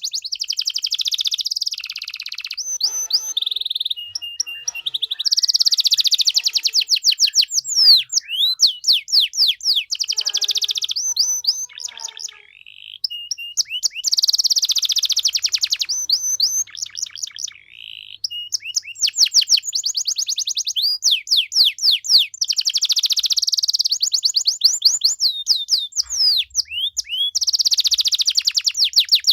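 Domestic canary singing a long, loud song of fast trills and rapid rising and falling whistled notes, pausing briefly twice.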